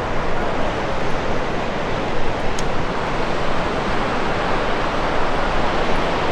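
Steady rushing noise of wind and breaking sea surf, even throughout, with no distinct events.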